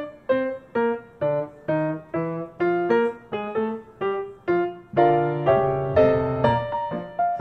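Background piano music: a melody of struck notes, about two a second, each fading away, with fuller, louder chords near the end.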